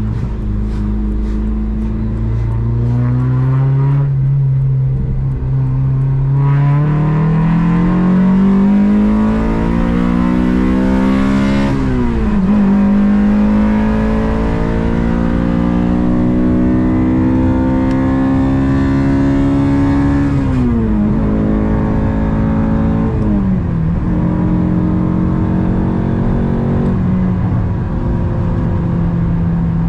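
Honda Civic Si engine pulling through the gears. The revs climb slowly, drop sharply at a gear change about twelve seconds in, climb again, and drop at further shifts around two-thirds of the way through before settling to a steady note.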